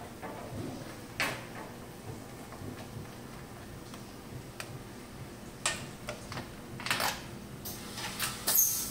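Screwdriver working screws on a sheet-metal sterilizer cabinet: scattered sharp metallic clicks and scrapes, coming closer together and louder in the last few seconds, over a steady low hum.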